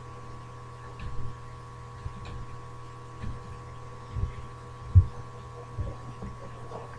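Computer keyboard keystrokes heard as dull low thumps, about one a second, over a steady electrical hum.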